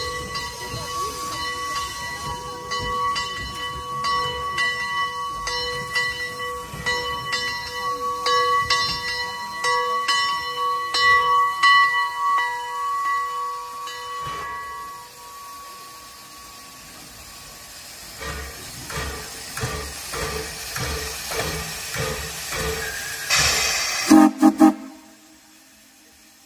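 Climax geared steam locomotive working, with steam hissing. For the first half a steady high ringing tone runs over rhythmic chuffs. Later the exhaust chuffs about twice a second, and a short, loud blast of steam comes near the end.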